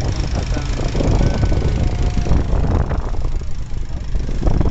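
Small wooden river motorboat underway: steady engine rumble and wind on the microphone, with water rushing and splashing along the hull.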